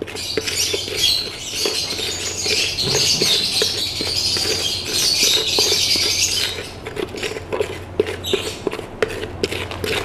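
A small plastic spoon stirring and scraping a dry mix of seeds and powders in a plastic bowl, making light scratchy rustling and small clicks as the soft food is blended. Over the first six seconds or so a high chatter of birds runs along with it, then falls away.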